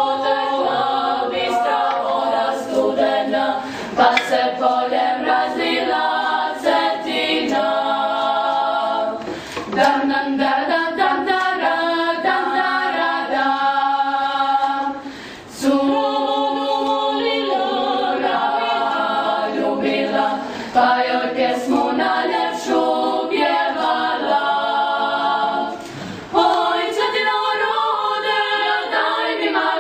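Young mixed klapa singing a cappella in close harmony, the Dalmatian unaccompanied vocal style, with short breaks between phrases.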